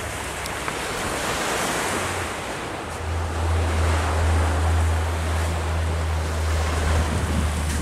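Sea surf washing onto the beach, with wind buffeting the microphone; a low wind rumble grows stronger about three seconds in.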